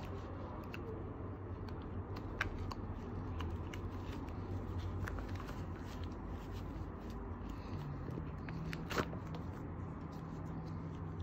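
Black nylon pouch rustling and scraping in gloved hands as compact binoculars are worked out of it, with scattered light clicks and a sharper tap about nine seconds in. A steady low background hum runs underneath.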